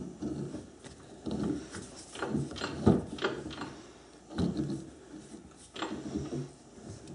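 Grooving tool on a South Bend lathe cutting aluminium, a scraping, chattering cut that comes and goes in short irregular spells as it cleans up chisel-roughed metal.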